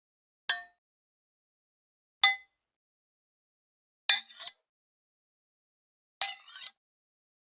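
Metallic clicks from handling a weapon: two single clinks with a brief ring, then two double clacks, each pair about half a second apart.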